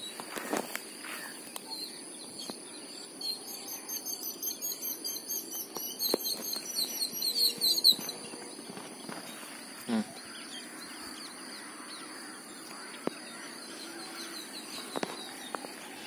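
A bird calling in a quick series of high chirps for about five seconds, louder and faster towards the end, over a steady high insect drone. A single knock comes about ten seconds in.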